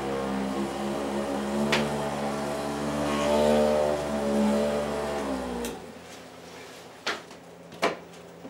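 Electric massager motor running with a steady hum whose pitch wavers slightly up and down, switched off about five and a half seconds in. Two sharp clicks follow near the end.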